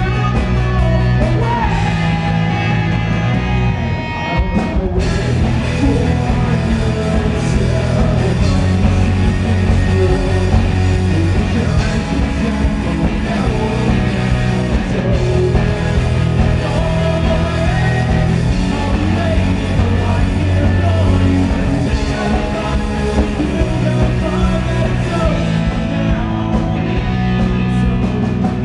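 Rock band playing live: guitars, bass and drums, with singing over part of it.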